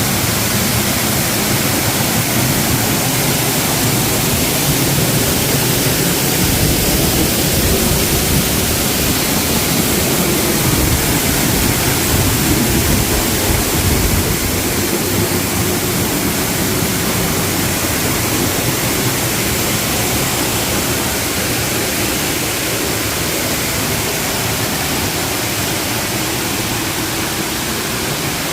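Waterfall making a steady, loud rushing. An uneven low rumble swells in the first half.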